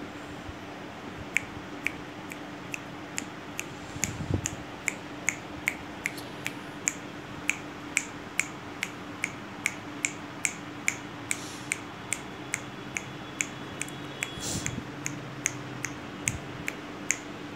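A steady series of short, sharp clicks, about two or three a second, over a faint steady hum.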